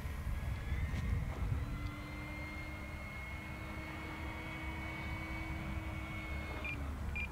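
E-flite Fw 190A electric RC warbird's brushless motor and propeller, heard from a distance as a steady drone with a higher whine over a low rumble, its pitch dipping near the end as the throttle eases.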